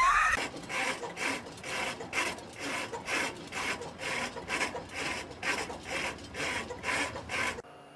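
Railroad crossing warning bell ringing in a steady, even rhythm of about three strikes a second. It stops abruptly near the end.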